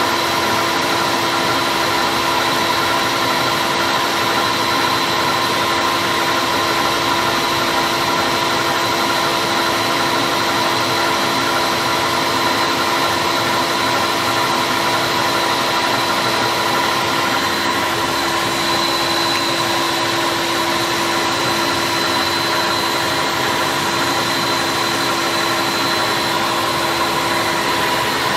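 Electric stand mixer running steadily, its whisk beating cake batter, with a constant motor hum carrying several steady tones.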